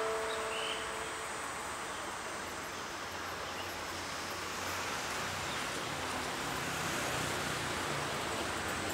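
Steady hiss of railway station ambience, with the last tones of a chime ringing out and fading in the first second or so. A faint low rumble comes in from about halfway through.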